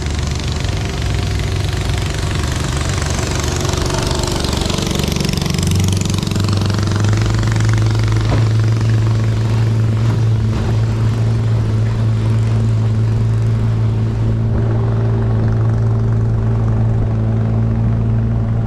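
Boat engine running steadily under way over a constant rush of noise. Its note steps up a little and gets slightly louder about six seconds in.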